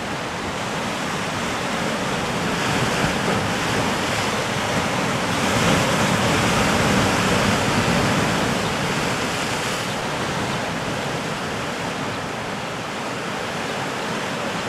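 Sea waves surging and breaking against a rocky lava shoreline: a steady rushing wash that swells louder about halfway through, then eases.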